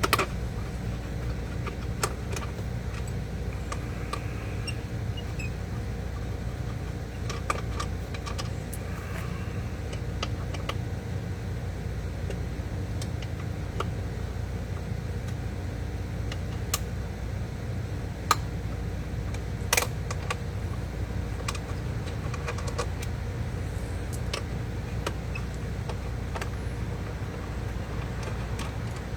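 Scattered sharp metallic clicks of a 6 mm Allen key and steel bolts with fender washers being worked loose and handled on a motorcycle's rear fender, over a steady low hum.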